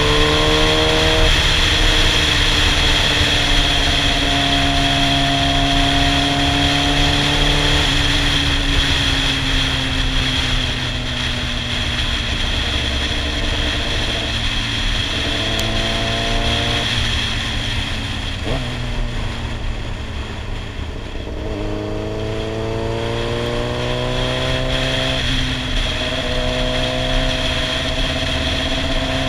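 Yamaha sportbike engine accelerating and cruising, heard from the rider's helmet: the engine note climbs in pitch and then drops at several gear changes, with a stretch of steadier, easing-off running in the middle. Steady wind rush on the microphone underneath.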